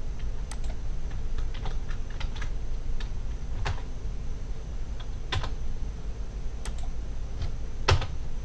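Sparse, irregular keystrokes and clicks on a computer keyboard, with a louder click near the end, over a low steady hum.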